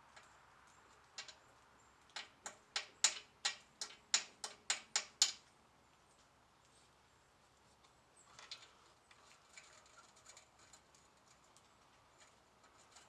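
A socket ratchet clicking in a quick run of about a dozen sharp metallic clicks, roughly three a second, as a rusted exhaust header bolt is worked loose; fainter scattered ticks follow later.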